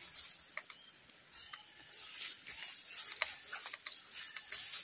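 Insects droning in a steady high-pitched chorus, with scattered light clicks and crackles on top.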